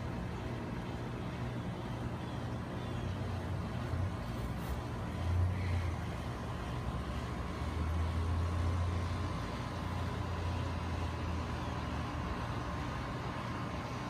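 Low, steady rumble of distant vehicle traffic, swelling briefly about five seconds in and again from about eight to eleven seconds.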